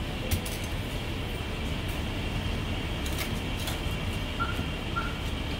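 A cleaver knocking a few times on a wooden chopping block as marinated goose is sliced, sharpest just after the start and again around three seconds in, over a steady background rumble and hum.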